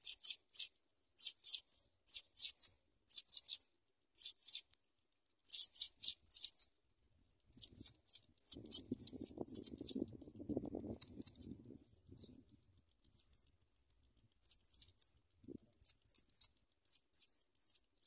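African pipit nestlings begging at the nest: runs of short, high chirps repeated in quick clusters of two to five, broken by brief pauses. A low rustling comes in about halfway through for a few seconds.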